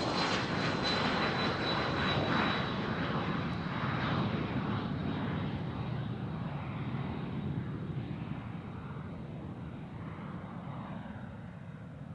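Jet airliner passing by: engine noise with a high whine that falls slightly in pitch and fades within the first few seconds, then the whole sound dies away gradually as the aircraft recedes.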